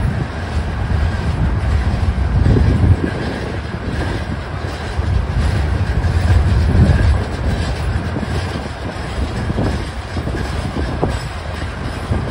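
Freight train of loaded limestone covered hopper cars rolling past at close range. The steel wheels rumble and clack on the rails, and the sound swells and eases in waves as the cars go by.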